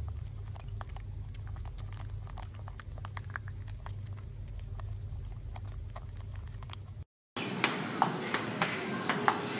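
Table tennis ball clicking off paddles and the table in a quick rally, two or three sharp clicks a second, starting after a brief silence about seven seconds in. Before it, a low hum with faint scattered ticks.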